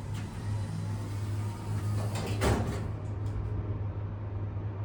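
Schindler-modernized elevator's doors sliding shut about two seconds in, over a steady low hum from the car.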